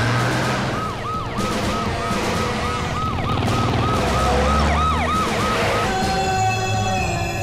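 Police convoy siren yelping in quick rising-and-falling sweeps, about three a second, over the low hum of car engines. Near the end the siren stops and steady electronic tones take over.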